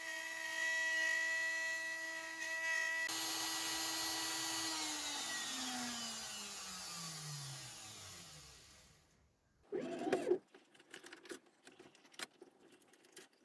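Shapeoko XXL CNC router's DeWalt trim-router spindle whining steadily as it carves black walnut, then switched off: its pitch falls as it spins down and fades out around nine seconds in. After that, a brief louder noise and light knocks and scrapes of wood being handled on the machine bed.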